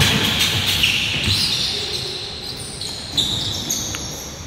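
Basketball game on a hardwood gym floor: sneakers squeaking in short, high chirps and a ball bouncing, in the echo of a large gym. It is loudest at the start and fades toward the end.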